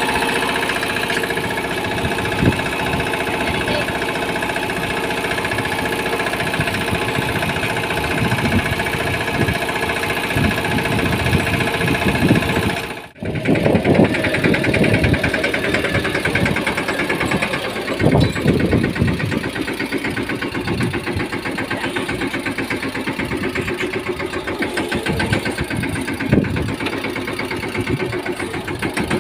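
Mahindra Yuvraj 215 mini tractor's single-cylinder diesel engine running steadily with an even, rapid firing beat. The sound cuts out briefly near the middle, then carries on.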